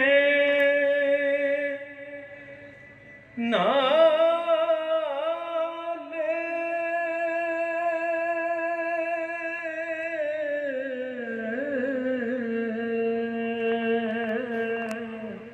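A man's voice chanting alone, holding long wavering notes: a short phrase ends about two seconds in, then a single long held note begins about three and a half seconds in and slides lower about ten seconds in.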